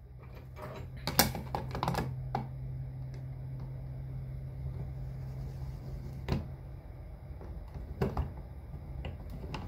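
Plastic wall-switch cover plate being fitted and its screws turned with a hand screwdriver: scattered sharp clicks and taps of plastic and metal. A low steady hum runs under it for the first part and stops about six seconds in.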